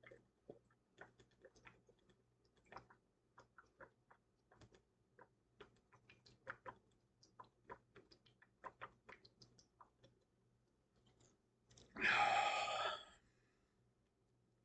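Faint, irregular mouth clicks and smacks from a person drinking Pepsi, two to four a second, for about ten seconds. About twelve seconds in comes a single loud, breathy burst from the mouth lasting about a second.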